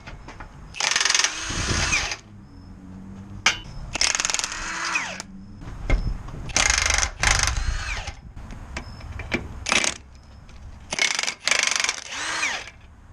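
Power impact wrench running in about five bursts of one to two seconds each, its pitch shifting within each burst, as it undoes nuts and bolts on the rear suspension and axle of a Nissan Hardbody pickup.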